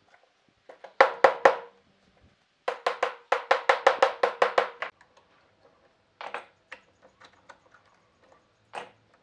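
Small hammer tapping rapidly on clamped wooden strips in a bent lamination. There are four quick taps about a second in, then a fast run of about a dozen taps, roughly six a second, each with a short ring. Scattered lighter knocks of clamps being handled on the bench follow.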